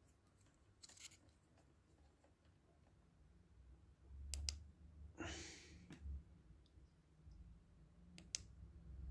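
Near silence broken by a few faint clicks: a pair about four seconds in and another near the end, from tactile push buttons on a small circuit board being pressed. A brief soft noise about five seconds in.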